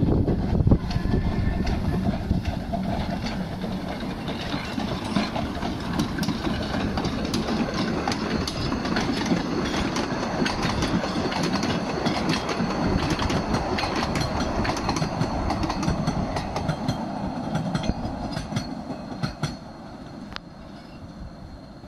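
Narrow-gauge steam train running past close by, its wheels clicking over the rail joints, the sound fading as it draws away over the last few seconds.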